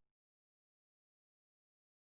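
Silence: the audio is blank.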